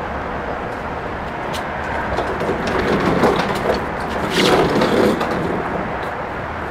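Wheeled wooden dolly carrying a heavy animatronic figure being rolled across a box truck's liftgate and into the truck bed: a rolling rumble with knocks, loudest from about three to five seconds in, over a steady low hum.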